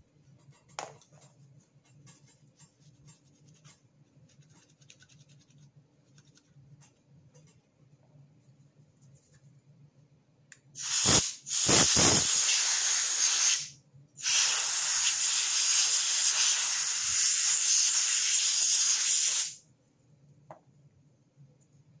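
Aerosol can spraying into a battery compartment: two short hissing blasts, then one long spray of about five seconds that cuts off sharply. Faint clicks of handling come before it.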